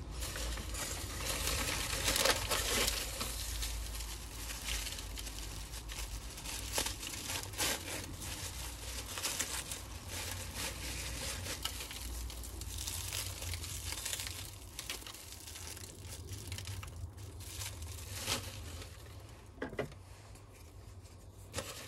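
Hands unwrapping a small potted cactus from white paper and plastic bubble wrap: continuous crinkling and rustling of the packaging, quieter over the last several seconds.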